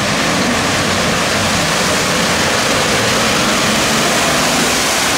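Off-road SUV driving through a muddy water pit: its engine running under load beneath a steady, loud rush of churned and splashing water and mud.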